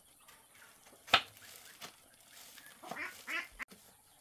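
Farm poultry calling in a few short, quacking calls about three seconds in, after a single sharp knock about a second in.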